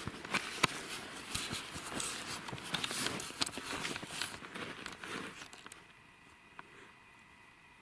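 Footsteps crunching through snow and dry grass, with crackling handling noise on the handheld camera, stopping about five seconds in; after that a quiet background with a faint steady high tone.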